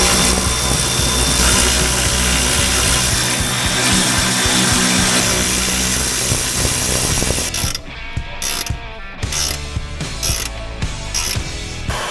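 Ratchet spinning a suspension ball joint nut. It runs continuously for about seven and a half seconds, then goes in short bursts.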